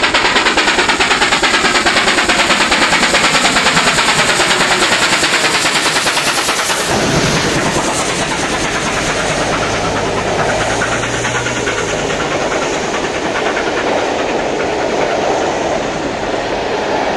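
NSW C38 class Pacific steam locomotive 3801 working hard, its exhaust beating fast and evenly. About seven seconds in, as the engine goes by, this gives way to the rumble and clatter of carriages rolling past on the rails.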